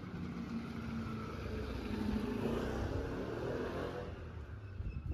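A motor vehicle driving past, its engine and tyre noise growing louder and then fading away over about four seconds.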